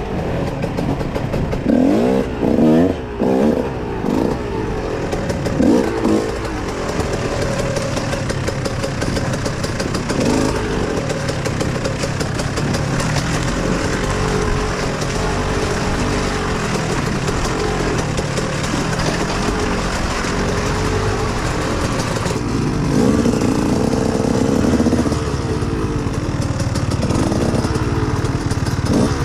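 Dirt bike engine running under riding load, revs rising and falling repeatedly in the first few seconds, steadier through the middle, then revving up and down again near the end.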